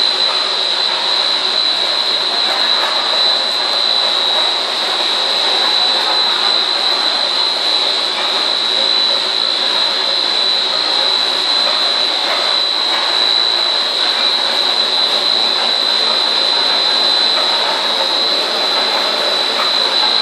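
Snack-pellet production machinery running: a steady mechanical din of electric motors with a constant high-pitched whine.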